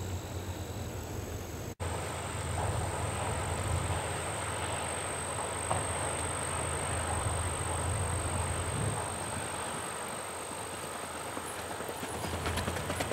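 A steady low outdoor rumble, then near the end the quick, even four-beat hoofbeats of a racking stallion on gravel, growing louder as the horse comes closer.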